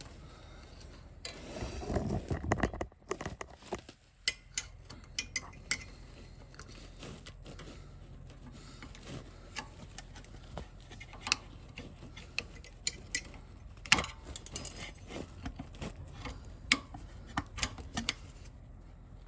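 Irregular metallic clinks and knocks of hand tools against a motorcycle center stand and its springs as it is worked on with a pry bar. A rustling scrape comes about a second in, and a sharper knock comes near the middle.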